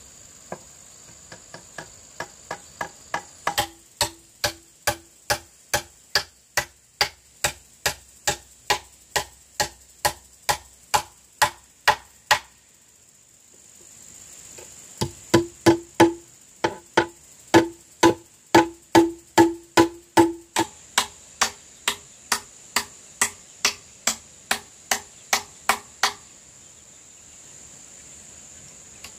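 Hammer driving nails into wooden boards: steady blows about two a second, beginning with light taps that grow harder, a short pause, then a second run of strikes. A steady high insect whine sits underneath.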